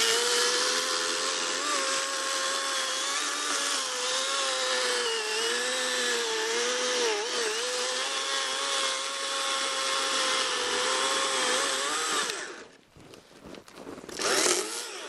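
Greenworks chainsaw cutting through a log. The motor whine is steady, dipping in pitch several times as the chain bites, and it stops about twelve seconds in.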